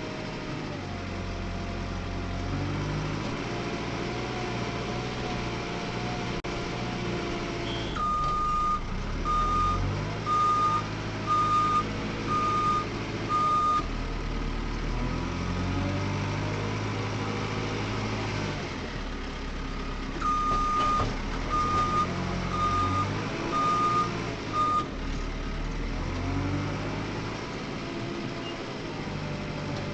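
Diesel engine of a JCB 3CX backhoe loader running under load, its revs rising and falling as it works. A reversing alarm beeps about once a second in two runs, six beeps about eight seconds in and five more about twenty seconds in.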